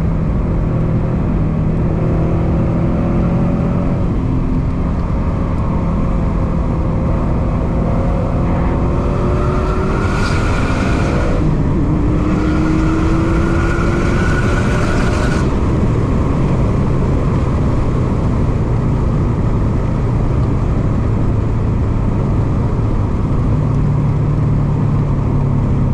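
Cabin sound of a 2017 Subaru WRX STI's turbocharged 2.5-litre flat-four accelerating on track, with steady road noise. The engine note climbs under power, breaks for a gear change about halfway, climbs again with a surge of hiss, then settles to a steadier drone.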